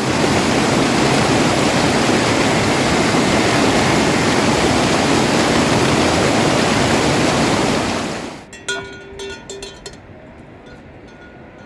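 Loud, steady rush of water that cuts off about eight seconds in, leaving a much quieter background with scattered ticks.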